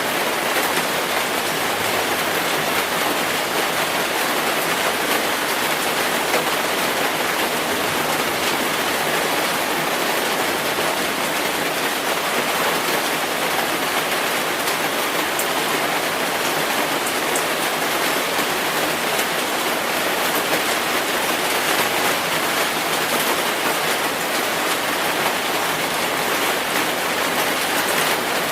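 Simulated rain: a steady, even hiss of falling rain with a fine patter of drops.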